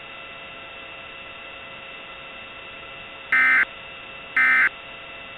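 Emergency Alert System end-of-message data tones. A steady low hiss with faint hum tones runs until about three seconds in, then two short buzzing bursts of data tone sound about a second apart.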